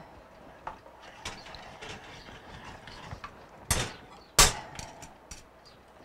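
Metal utensils stirring and whisking a milk mixture in a stainless steel saucepan: a light scraping with scattered sharp metallic clinks. The loudest clink comes about four and a half seconds in.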